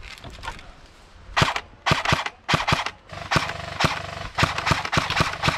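Airsoft guns firing: sharp cracks, single shots and quick bursts, starting about a second and a half in and coming thick and fast after that.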